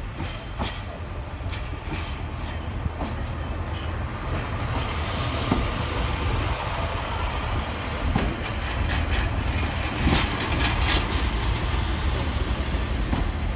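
Northern Class 142 Pacer diesel railbus running slowly in alongside the platform. Its underfloor diesel engine gives a steady low rumble, with scattered sharp clicks from the wheels, and it grows somewhat louder about halfway through as the unit comes alongside.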